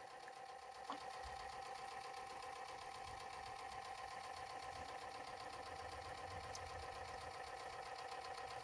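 3D-printed Newman motor running steadily: a faint, even buzz from the brushes and commutator pulsing the large coil as the magnet rotor spins, with one small click about a second in.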